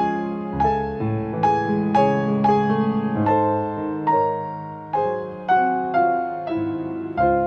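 Background piano music: a slow, gentle melody of struck notes that ring and fade.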